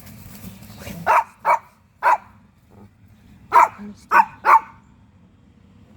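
A dog barking: six short, sharp barks, three in quick succession about a second in and three more a little after the middle.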